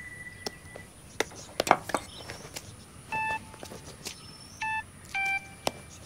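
Mobile phone keypad beeps: three short electronic tones from about three seconds in, the last two close together, among scattered sharp clicks and knocks.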